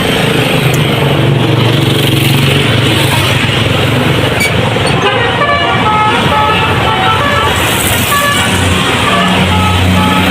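A passing tour bus's telolet horn playing a quick tune of short notes at changing pitches, about halfway through, over the hum of a heavy engine and road traffic.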